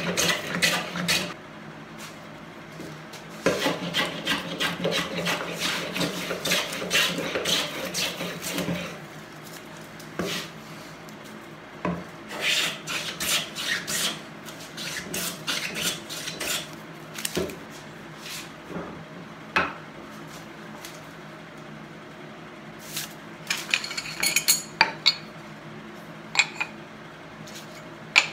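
Hand plane shaving the edge of a wooden board in runs of quick strokes with short pauses between runs. Toward the end there are only a few scattered scrapes and knocks.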